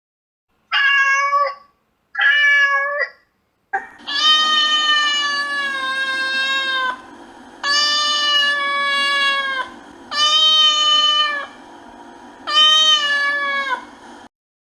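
Domestic cat meowing: two short meows, then four long drawn-out meows over a steady background hum.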